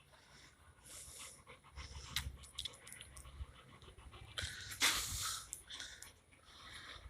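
A dog panting in short, breathy bursts, with a louder noisy burst about five seconds in.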